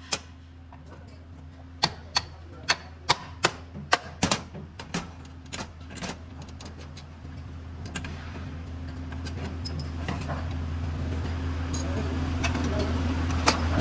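Sharp metal clicks, about a dozen in the first six seconds, from a tractor seat's slide-rail adjuster as the seat is moved along its notches. Under them a steady low hum that grows louder in the second half.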